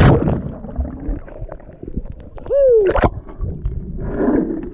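A person splashing into river water, followed by gurgling water. About two and a half seconds in comes one short voice-like cry that falls in pitch.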